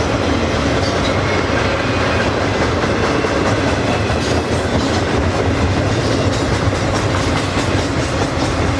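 BNSF freight train of garbage cars rolling past: a steady, loud rumble of steel wheels on the rail, with clickety-clack over the rail joints.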